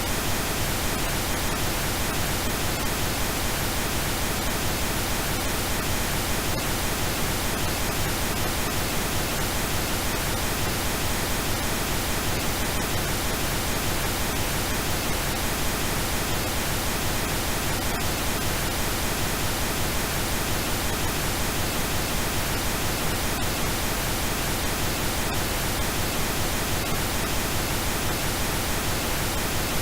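Steady synthetic pink noise: an even, unchanging hiss spread across the whole range from deep to high.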